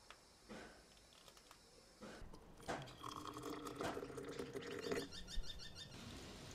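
A plastic bag of polymorph pellets rustling faintly as it is handled. About two seconds in, hot water is poured in a thin stream into a glass jar, running for about three seconds before it stops.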